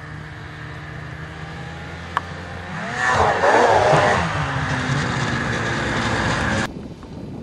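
Snowmobile engine approaching and revving hard as the sled goes over a snow jump about three seconds in, its pitch swinging up and down. The engine stays loud as it passes close by, then cuts off suddenly near the end, with a single sharp click a little before the jump.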